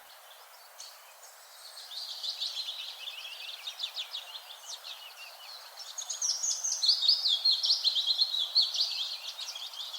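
Forest songbirds singing: rapid, high chirping trills that start faint about a second and a half in and grow busier and louder from about six seconds, over a faint even hiss.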